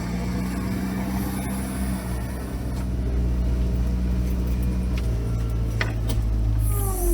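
ATV engine running steadily at low revs, a low, even hum. Near the end a higher whine comes in, dropping in pitch and then holding steady.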